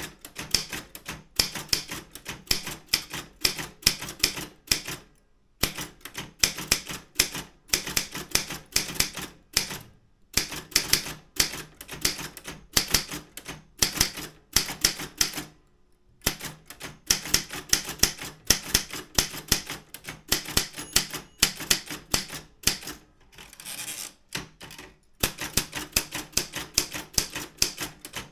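Daro Optima M16 manual typewriter being typed on briskly: the typebars strike the platen in fast runs of sharp clacks, several a second, broken by short pauses a few times.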